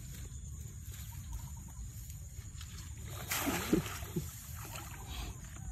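Bare feet splashing into shallow rice-paddy water, a short cluster of splashes a little past halfway, over a steady low rumble.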